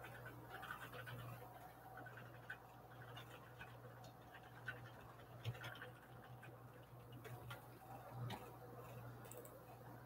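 Quiet room tone: a steady low hum with scattered faint clicks and ticks, two slightly sharper clicks about midway.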